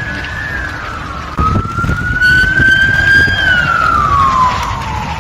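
Ambulance siren wailing, its pitch slowly rising and falling over a low rumble, getting louder about a second and a half in.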